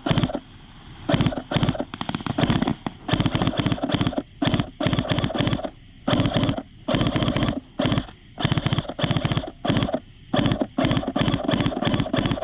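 Airsoft rifle firing full-auto in repeated short bursts of rapid, even shots, with brief pauses between bursts.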